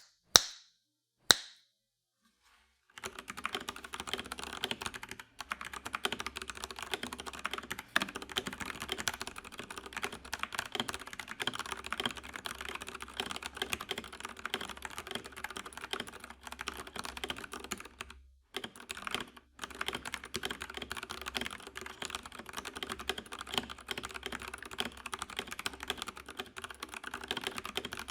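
Fast typing on an FL eSports 980 mechanical keyboard with Kailh BOX Brown tactile switches, the board sitting directly on the desk without a mat. A few single key clacks come first, then a steady stream of rapid keystrokes from about three seconds in, broken by a couple of brief pauses.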